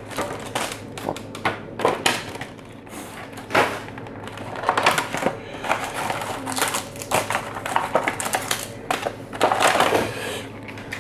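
Plastic shrink-wrap crinkling and cardboard rustling and scraping as sealed trading-card booster boxes are unwrapped by hand, in an irregular run of crackles and sharp clicks.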